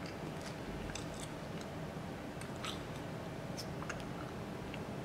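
Faint, scattered clicks of an ultrasound console's keys and trackball buttons being pressed, about eight at uneven intervals, over a steady low hum.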